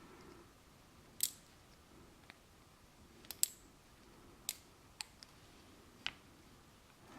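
Several sharp little metallic clicks at irregular intervals as the parts of a DOM IX 5 dimple lock are handled during disassembly: pins, springs and the core being moved about after they spilled out when the plug was pushed out.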